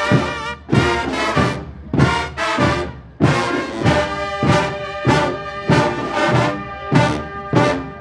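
A fanfarria brass band of trumpets and trombones playing a piece with a steady beat, the notes striking together on each beat.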